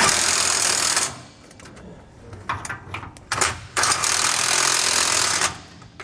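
Power wrench on a long socket extension running down the bolts of a sway-bar frame bracket, in two bursts of about one and two seconds, with a few short clicks between them.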